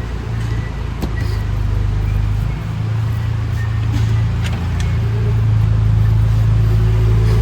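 A car engine running steadily with a low hum that gets a little louder about two-thirds of the way through. Scattered sharp metallic clicks and taps from wrench work on the suspension sound over it.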